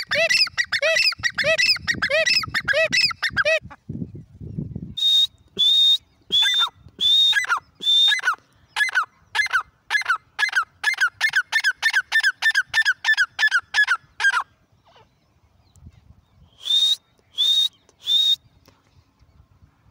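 Grey francolin (Deccani teetar) calling loudly: a fast run of repeated notes, a pause, then a long series of sharp notes dropping in pitch that speeds up, and three more notes near the end.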